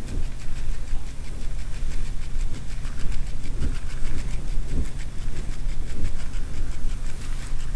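Baitcasting reel being cranked with the drag tightened, its gears giving a fast, regular clicking, several clicks to each handle turn, over a steady low hum. This frequent clicking is typical of a faulty pinion gear.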